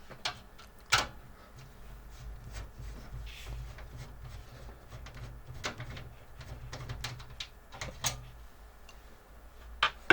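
Scattered light clicks and knocks of computer case parts, screws and cables being handled during PC disassembly, the sharpest knock about a second in, over a low steady hum.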